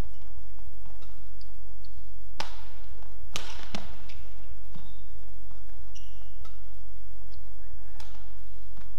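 Badminton rally: sharp racket strikes on the shuttlecock at irregular intervals, the clearest about two and a half, three and a half and eight seconds in, with short high squeaks of court shoes between them, over a steady low hum.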